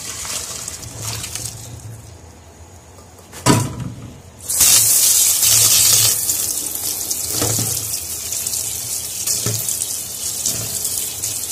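Cooked spaghetti and its water poured from the pot into a metal colander in a sink, with a sharp metal knock about three and a half seconds in. About a second later the tap comes on, and water runs steadily onto the pasta in the colander as it is rinsed.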